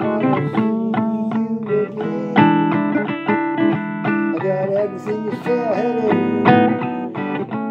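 Blues guitar instrumental break: picked notes and chords, with string bends bending the pitch up and back about two-thirds of the way through.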